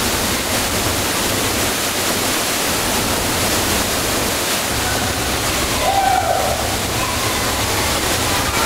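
Trümmelbach Falls, the glacier-fed waterfall plunging through a gorge inside the mountain: a steady, loud rush of falling water, echoing off the enclosing rock.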